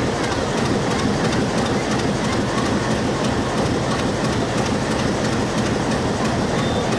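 A train running on the rails: a steady noise of wheels rolling, with the clickety-clack of wheels over rail joints.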